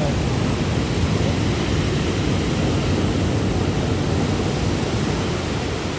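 Steady rushing noise of sea surf, mixed with wind buffeting the microphone.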